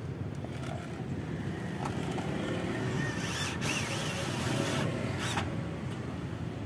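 Cordless drill driving screws into an aluminium sliding-door frame, short whirs and a few sharp clicks around the middle, over a steady low rumble.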